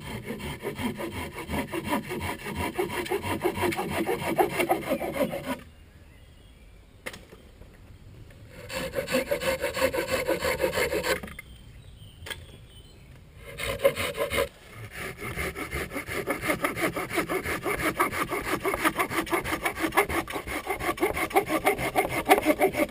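Hand saw cutting off the ends of wooden poles in quick, even back-and-forth strokes. The sawing stops twice for a few seconds, then runs steadily through the second half.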